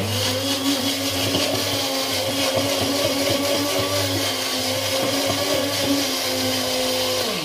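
Electric blender running, grinding fresh coriander, ginger, onion and green chillies with a little water into a green paste. The motor comes on suddenly, runs at a steady pitch, and winds down as it is switched off at the end.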